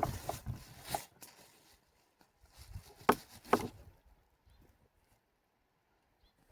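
A knife chopping into pork: a few light strikes in the first second, then two sharper blows about half a second apart around three seconds in.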